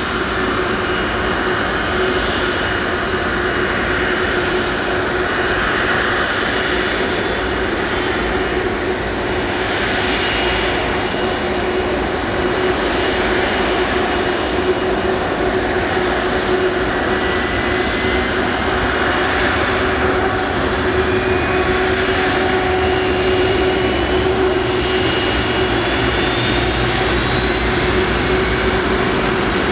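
Airbus A330 Voyager's Rolls-Royce Trent 700 turbofan running at low power: a steady hum under a high jet whistle, with a whine that climbs in pitch over the second half.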